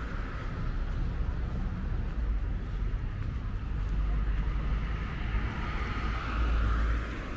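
Road traffic noise on a city street, swelling twice as vehicles go by, over a steady low rumble.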